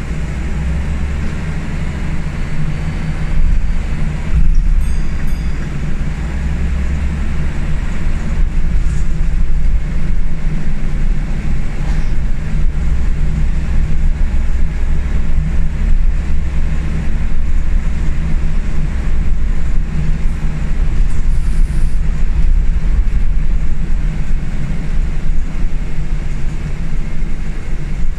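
Scania L94UB single-deck bus on the move, heard from inside the cabin: a steady low engine drone with road noise, getting louder about four seconds in.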